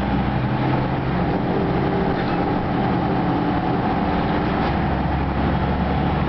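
Ikarus 260 city bus on the move, heard from inside the passenger cabin: steady diesel engine hum with road and body noise.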